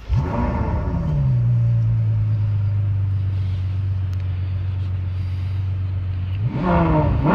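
Ferrari engine starting: a loud flare of revs that falls over about a second and a half to a steady idle. Near the end it is blipped once, the revs rising and dropping back.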